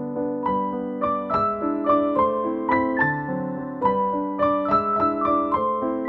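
Background piano music: a gentle melody of single notes over held low chords, the melody coming in about half a second in.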